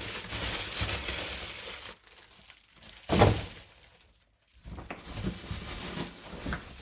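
Plastic packaging of dried food crinkling and rustling as it is handled, with one sharp thud about three seconds in.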